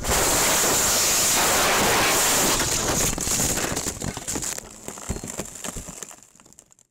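A car rolling over in a crash: a sudden loud rushing, scraping noise that holds for a couple of seconds, then breaks into crackles and dies away.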